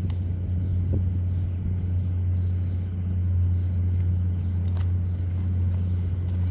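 A machine or engine running with a steady low hum, with a few faint clicks over it.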